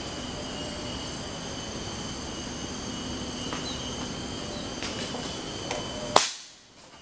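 Steady chorus of forest insects, several high whines held level. About six seconds in, a single sharp crack of a rifle shot fired at a small animal in the bamboo, after which the sound drops away.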